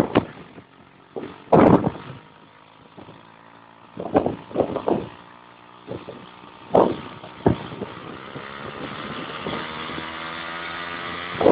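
Wind gusting against the microphone in irregular blasts, over a steady motor-like hum that slowly rises in pitch through the second half.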